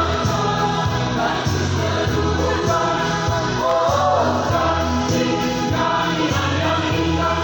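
A church choir singing a hymn in several voices over a bass line that changes note about every half second.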